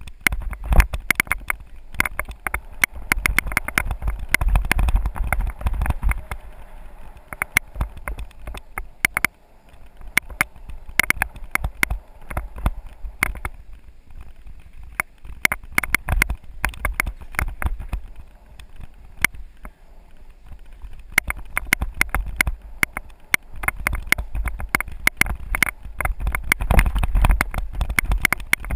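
Mountain bike clattering and rattling over a rough dirt singletrack on the way down, heard from a GoPro riding along: a dense run of sharp knocks and clicks over a low rumble of wind on the microphone. The clatter thickens on rougher stretches and thins out on smoother ones.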